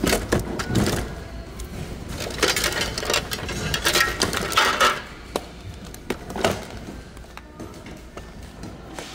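Plastic household items in a bin clattering and knocking against each other as a hand shifts them about, busy in the first five seconds and sparser and quieter after.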